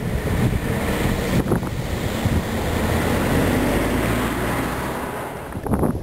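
Blizzard wind gusting and buffeting the microphone with a rough, low rumble. A passing vehicle's rush on the slushy road swells and fades in the middle.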